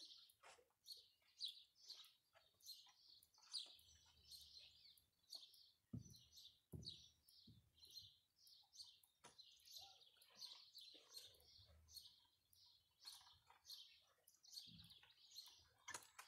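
Small birds chirping faintly, an unbroken run of short, high calls several times a second, with a couple of dull low thumps about six and seven seconds in.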